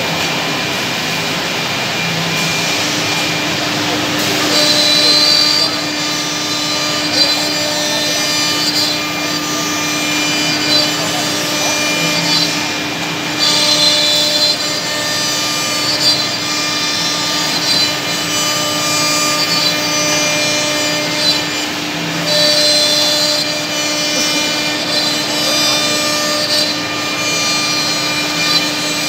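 Five-head CNC mortising machine running, its spindles giving a steady whine, with repeated spells of hissing wood-cutting noise a second or two long as the bits cut mortises into the wooden rails.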